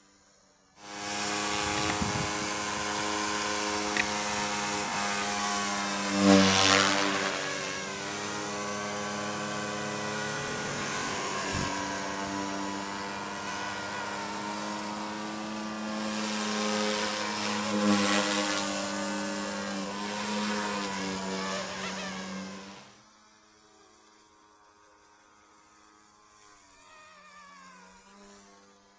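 Small electric RC helicopter (Eachine 180 direct-drive) flying on a single rotor blade: a steady motor-and-rotor whine that starts about a second in and swells in pitch twice as it manoeuvres. It stops abruptly about three-quarters of the way through, leaving a faint hum.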